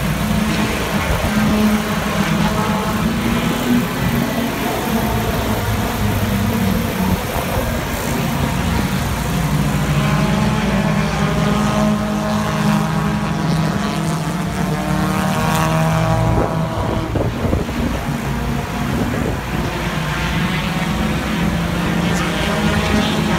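Several hobby stock race cars running laps on an oval track, their engines droning steadily, with pitch rising and falling as cars pass.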